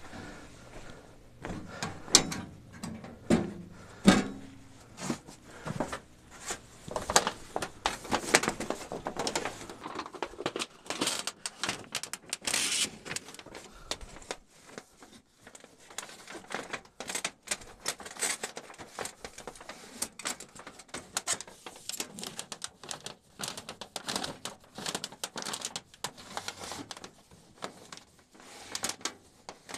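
Small sheet-metal tent wood stove set down with a few loud knocks a couple of seconds in, followed by a long run of clinks and scraping as the steel stovepipe is fitted and twisted into the stove's flue collar.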